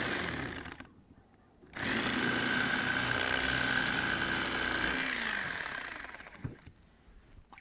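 Electric fillet knife buzzing as it skins a northern pike fillet: it stops about a second in, starts again just under a second later, and runs for about three and a half seconds before winding down with a falling pitch.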